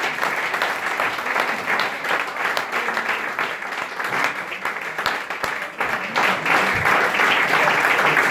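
Audience applauding: steady, dense clapping that dips briefly about six seconds in and then picks up again.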